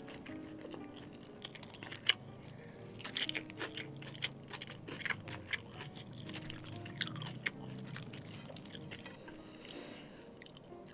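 A person chewing and biting fried chicken and noodles, with many sharp crunchy clicks, the loudest about two seconds in.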